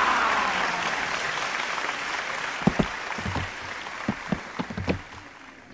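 Audience applause on a cartoon soundtrack after the rabbit is pulled from the hat, slowly fading away, with a few light knocks and taps in the second half.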